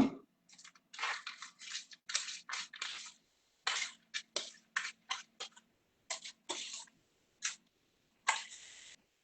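A run of short, irregular scratchy strokes as breadcrumbs and chopped pecans are mixed with olive oil in a bowl to bind the topping.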